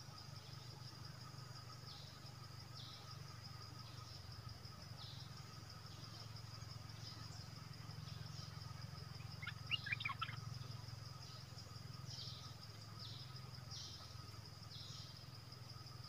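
Bulbul giving a brief burst of quick, sharp notes about ten seconds in, with short chirps recurring throughout over a steady high insect drone.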